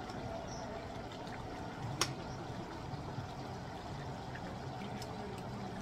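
Chicken afritada in tomato sauce simmering steadily in an open pot, with one sharp click about two seconds in.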